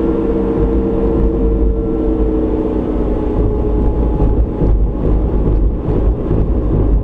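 Car driving, heard from inside the cabin through a dashcam microphone: steady low road rumble and engine hum. A humming engine tone fades out about three seconds in, leaving rougher, uneven rumble.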